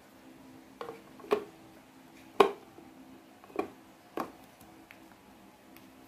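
Bulb holder being pushed and twisted into the motorcycle's plastic tail-light housing by hand, giving about five sharp separate clicks and knocks over the first four seconds.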